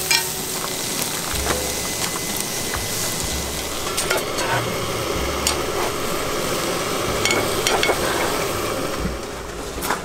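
Food frying and sizzling in a pan while being stirred, with a metal spatula and fork scraping and tapping against the pan now and then.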